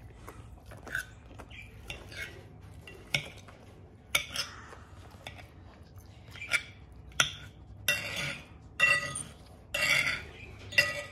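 Knife and fork cutting salmon on a plate: short metal scrapes and clinks against the plate, several with a thin ringing edge, coming more often in the second half.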